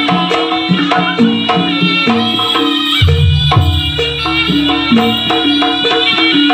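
Jaranan dance music from a gamelan-style ensemble: hand drums and metal pitched percussion playing a quick, busy rhythm, with a deep low note coming in about three seconds in.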